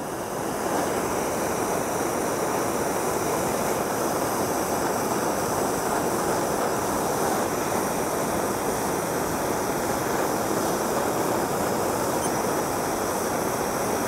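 Handheld gas torch on a yellow fuel cylinder burning with a steady rushing hiss as its flame heats the blades of pruning shears red-hot to disinfect them. The flame cuts off at the end.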